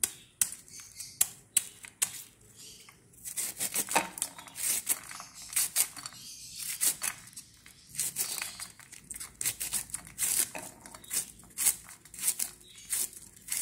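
Knife slicing through fresh cabbage: a quick, irregular series of crisp cuts.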